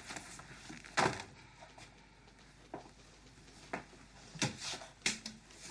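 A few separate knocks and clicks, handling noises in a small room, the loudest about a second in and a cluster of sharper ones near the end.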